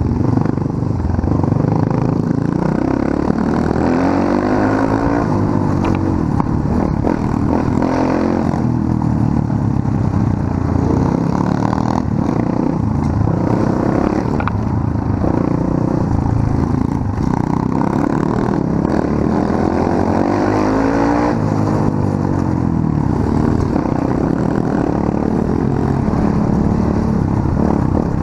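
Pit bike's small single-cylinder engine running under way, its revs rising and falling several times as the throttle is worked.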